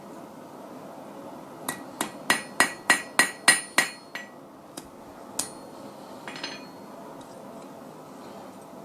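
Hand hammer striking steel on an anvil in blacksmith forging: a run of about eight ringing blows, roughly three a second, then a few lighter, scattered taps.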